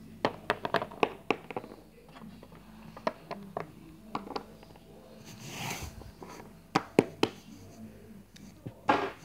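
Small plastic toy animal figures being handled and set down on a hard tabletop: sharp clicks and taps in short clusters, with a brief rustle a little past halfway.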